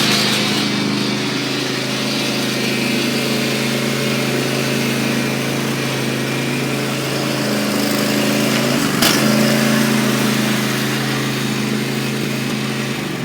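Riding lawn mower engine running at a steady speed, with a sharp click and a brief dip in engine speed about nine seconds in.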